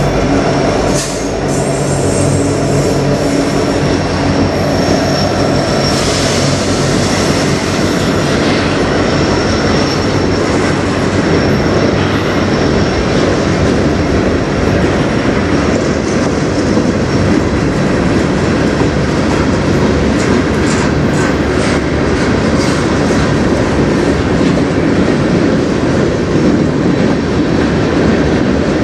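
CN diesel freight locomotive passing close by, its engine drone fading over the first several seconds. It gives way to the steady rumble and clatter of covered hopper cars rolling past. A thin, high wheel squeal is heard in the first several seconds.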